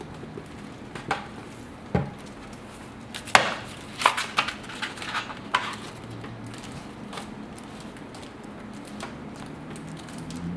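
Large hardcover art book handled on a wooden tabletop: a few knocks and taps as it is turned up on its spine and opened, the loudest a little over three seconds in, followed by a quick run of paper rustles as the pages are flipped.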